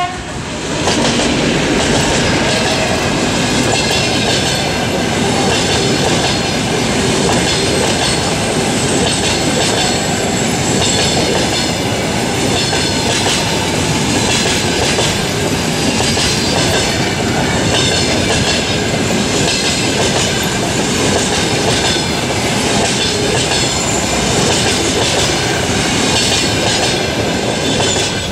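TEP70BS diesel passenger locomotive passing close by, followed by a long line of passenger coaches rolling past, their wheels clacking over the rail joints. Loud and steady throughout.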